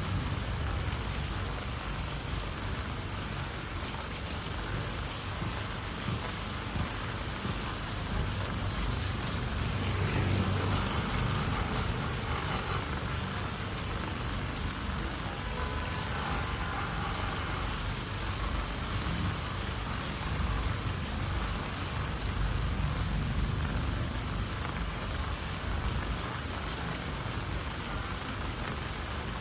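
Steady rain played as a white-noise sleep sound: a dense, even hiss with fine drop-like ticks over a low rumble.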